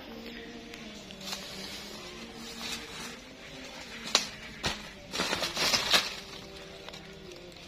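A chainsaw idling steadily in the background. A little after four seconds in come two sharp knocks, then about a second of scraping rustle as a hand brushes sawdust across the freshly sawn face of a wood slab.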